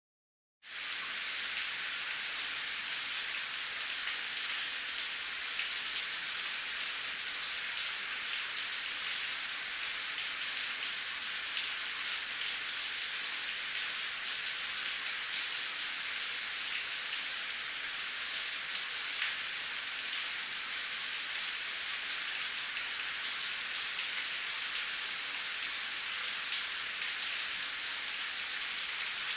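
Steady rain falling, a dense even patter of drops, starting suddenly about half a second in and holding at a constant level.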